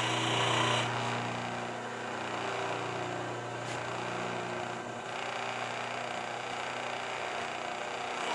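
Hydraulic shop press's pump motor running with a steady hum while the press pushes a bushing into an excavator H-link bore; a higher hiss over it stops about a second in.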